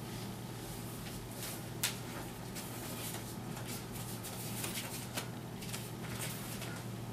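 Quiet room tone with a steady low hum and a few faint scattered clicks and knocks, the sharpest about two seconds in and about five seconds in.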